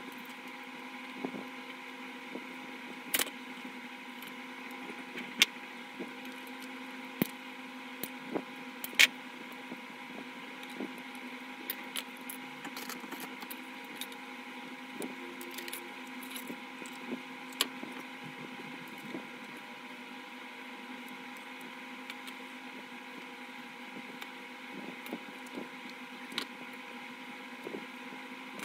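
Scattered light clicks and taps of small wooden stick pieces and a wooden mousetrap being handled and fitted together on a tabletop, over a steady background hum.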